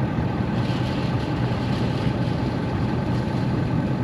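A parked vehicle's engine idling steadily, heard close up from the hood.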